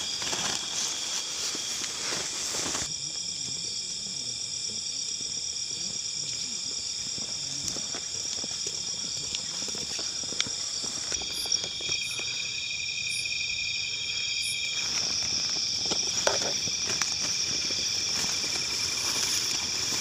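Night insects trilling in a steady chorus of several high-pitched tones, which change suddenly about three, eleven and fifteen seconds in, over faint footsteps and rustling through grass.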